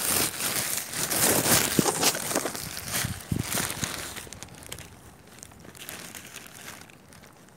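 Thin plastic bag crinkling and rustling as it is handled with mushrooms inside, loudest over the first four seconds and then quieter.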